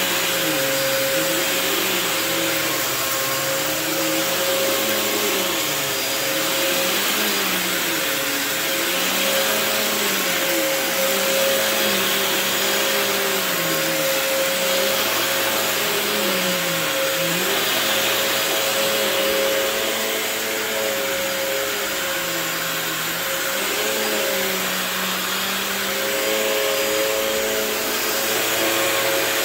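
Phantom Twister bagless upright vacuum cleaner running: a steady motor whine, with a lower tone beneath that rises and falls every second or two.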